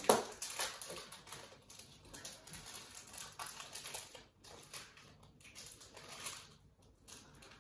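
Crinkling wrappers and packaging as toffee candies are opened: an irregular run of crackles and clicks, with a sharp snap just after the start.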